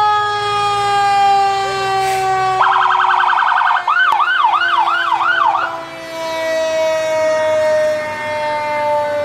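Fire engine sirens. A long siren tone slides slowly down in pitch throughout. A bit under three seconds in, a second siren cuts in with a rapid warble, then switches to quick yelps about twice a second, and stops near six seconds.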